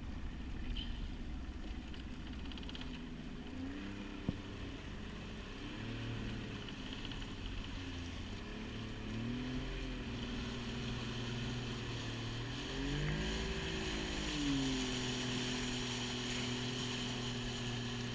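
Jon boat's outboard motor running, its pitch rising and falling several times as the throttle is worked, then settling into a steady note for the last few seconds.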